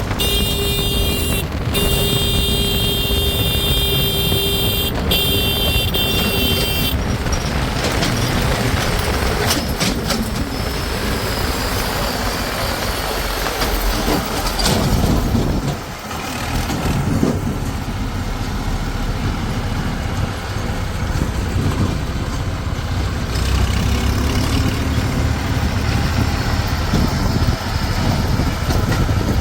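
Heavy diesel machinery running and working, a steady low engine rumble. For about the first seven seconds a high steady tone sounds over it, cut twice briefly.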